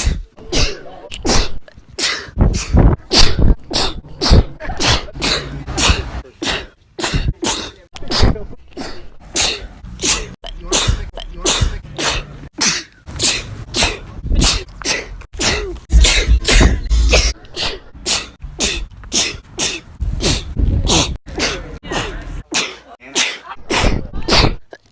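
A woman sneezing over and over, dozens of sharp sneezes edited back to back at about two a second.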